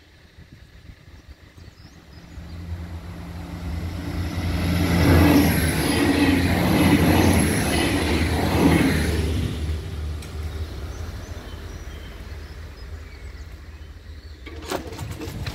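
Regional multiple-unit train passing close by. Its rumble and wheel noise build up, stay at full strength for a few seconds with a faint high whine over the top, then die away. A few sharp clicks come near the end.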